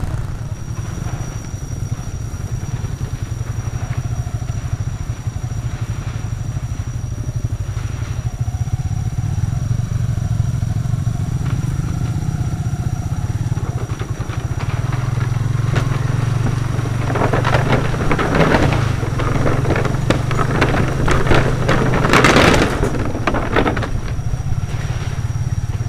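Small motorcycle engine running steadily on a ride, with louder rushing bursts in the last third, from about two-thirds of the way in until near the end.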